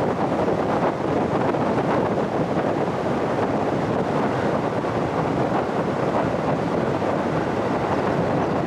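Steady wind and road noise from a car travelling at about 60 km/h, with wind buffeting the microphone.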